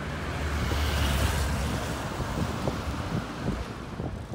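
Street traffic noise, swelling about a second in and then easing, with wind rumbling on the microphone.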